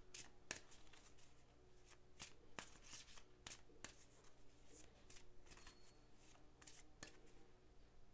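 A deck of oracle cards being shuffled by hand: a faint, irregular run of soft card snaps and riffles.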